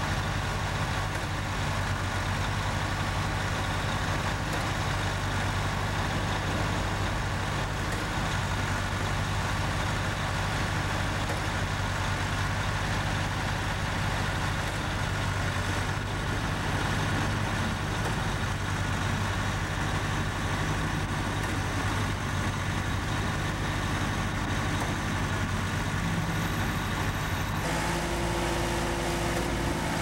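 Engine of a REED A30HP trailer concrete pump running steadily at a constant speed while pumping concrete, a low, even drone. The sound changes abruptly near the end to a different steady engine drone.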